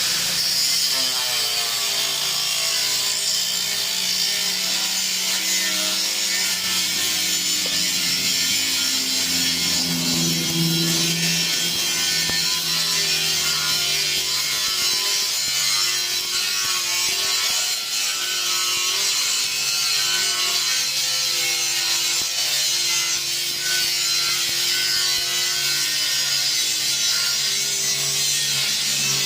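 Electric welding arc hissing and crackling steadily, with a low wavering hum underneath.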